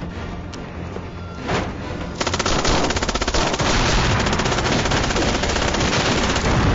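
Rapid automatic gunfire: a single bang about a second and a half in, then from about two seconds in a dense, continuous rattle of machine-gun fire that does not let up.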